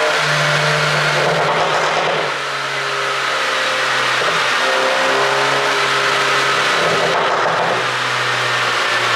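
2019 Audi A3 40 TFSI's turbocharged four-cylinder engine, on a pop-and-crackle ECU tune, running in a steady drone whose pitch shifts up and down in small steps, with rougher stretches about two seconds in and again near the end.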